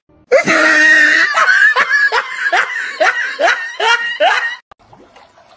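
A person laughing hard off-camera: a rapid run of about ten "ha" syllables, roughly two or three a second, stopping about four and a half seconds in.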